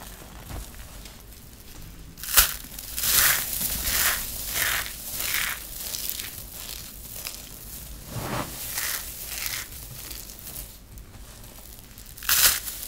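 Dry, crispy shredded soap crushed and squeezed by hand, crunching and crackling. A sharp crack comes about two seconds in, followed by a run of crunches about two a second; after a lull, loud crunches return near the end.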